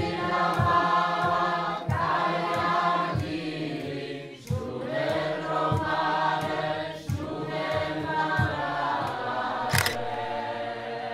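Choir music: several voices singing sustained, gliding chords over a steady low beat. A sharp click sounds near the end.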